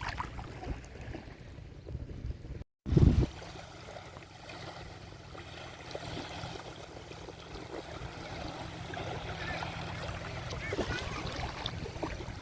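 Sea waves washing and lapping on a shore, with faint voices of people playing in the water in the distance. About three seconds in the sound cuts out briefly and then comes back with a loud low thump.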